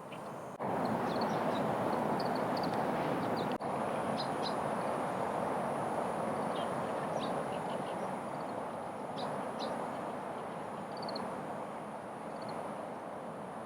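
Wild birds giving short, high chirps scattered over a steady rushing background, with a quick run of three or four notes near the end. The background becomes louder about half a second in.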